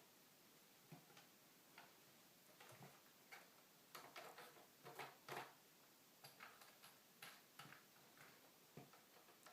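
Near silence broken by faint, irregular clicks and light taps, busiest around four to six seconds in.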